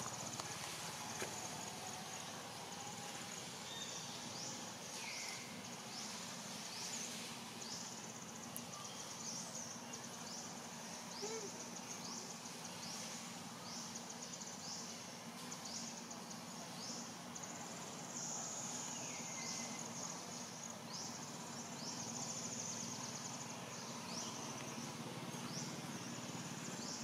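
Insects shrilling steadily in a high chorus that pulses with quick downward sweeps about once a second, over a steady low hum. A falling call sounds twice, about five seconds in and again near the twentieth second.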